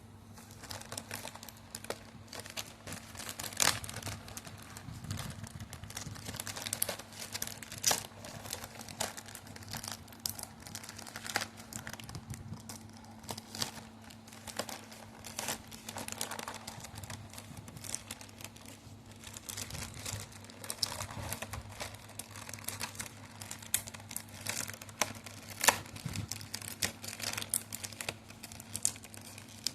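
Packaging being crinkled and torn open by hand: an irregular run of crackles and rustles with louder sharp crackles here and there, over a faint steady low hum.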